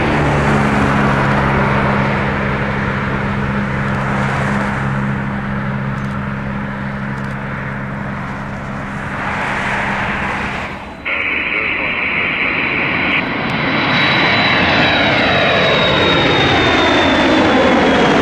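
Boeing KC-135R Stratotanker's four CFM56 turbofan jet engines running loud as the tanker flies a pass, with a steady low hum under the jet noise for the first ten seconds or so. The sound breaks off sharply about eleven seconds in, then returns with a high fan whine sinking slowly in pitch as the jet passes by.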